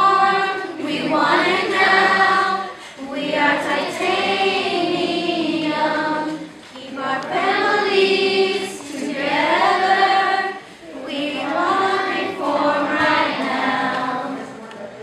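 A group of children and young women singing together unaccompanied, in four long phrases with short breaks between them.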